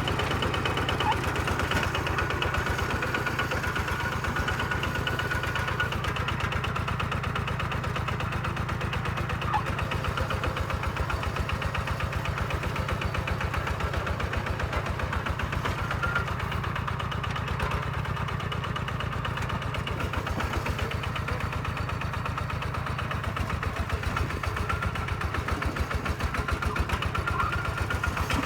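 Kubota tractor's diesel engine running steadily, its firing coming as fast, even pulses with no big change in speed.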